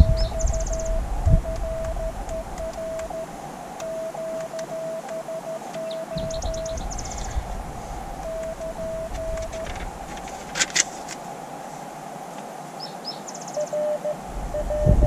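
Morse code (CW) signals from a portable QRP ham transceiver's speaker: a steady mid-pitched tone keyed in dots and dashes over a band of receiver hiss, pausing a few times, with a second signal at a slightly lower pitch near the end.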